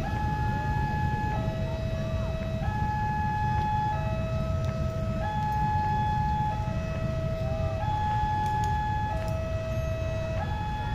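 Railway level-crossing warning alarm sounding its two-tone signal, a higher and a lower note alternating, each held a little over a second, as a train approaches the closed crossing. A steady low rumble runs underneath.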